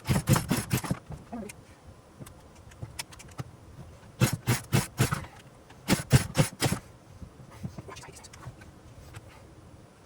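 Poulan Pro 42 cc two-stroke chainsaw being pull-started three times, the recoil starter cord whirring as the engine turns over in quick pulses. It never fires: the saw will not start even with spark.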